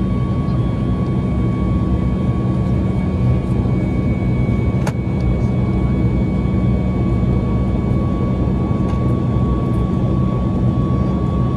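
Boeing 737 MAX's CFM LEAP-1B turbofan engines heard inside the cabin during the climb after takeoff: a steady roar with a deep rumble and a thin steady whine above it. A single sharp click sounds about five seconds in.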